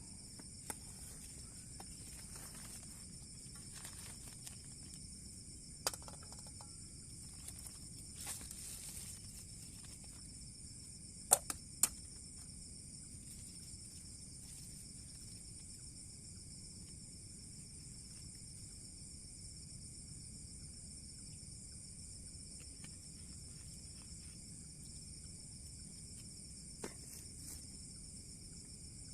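Steady chorus of crickets and other insects, with a few short sharp clicks and knocks, the two loudest close together about eleven seconds in.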